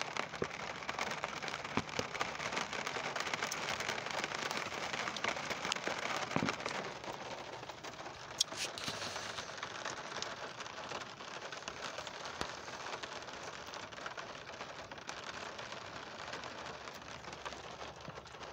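Rain falling on a car, heard from inside it: a steady patter with many separate drops ticking. It eases a little after about six seconds.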